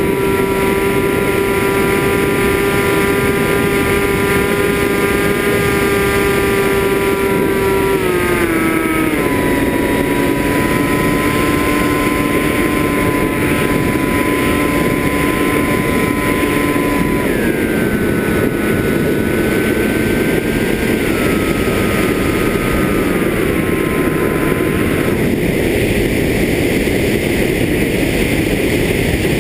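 FPV drone motors and propellers running with a steady whine over loud rushing air. The pitch drops in steps about a third of the way in and again past the halfway mark as the throttle is eased. Near the end the whine fades and only the rushing air remains.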